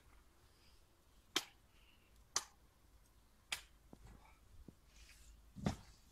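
Four sharp clicks about a second apart, the last a heavier knock, as parts of an Intex Prism Frame pool's frame are fitted together.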